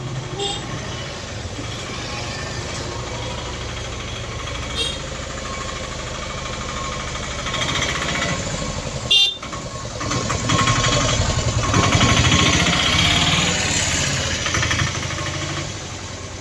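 Busy street traffic: short vehicle-horn toots twice, then a motor vehicle running loudly close by for several seconds before it fades near the end.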